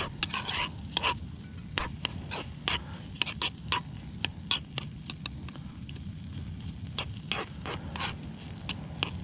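Metal spoon stirring fried rice around a frying pan, with irregular clicks and scrapes of the spoon against the pan.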